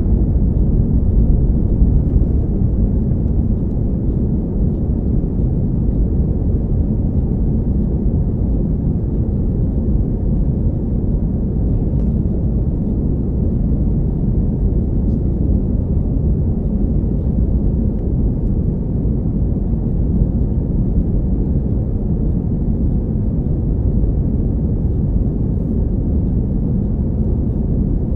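Cabin noise inside an Airbus A319-112 airliner in flight: a steady low rumble of its CFM56 jet engines and rushing air, heard from a window seat over the wing.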